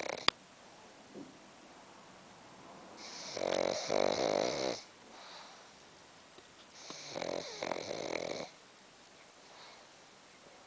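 Pug snoring in its sleep: two long snores about four seconds apart, with quiet breathing between them. A brief sharp click comes right at the start.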